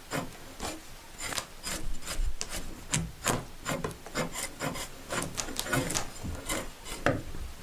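A hand tool shaving and scraping a pine branch in short, irregular strokes, about three a second, as the wood is roughly shaped for a wooden horn.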